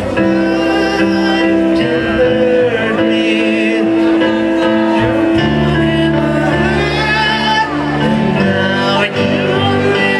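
Live band music: a singer's voice with a wavering held note over sustained keyboard chords that change every second or two.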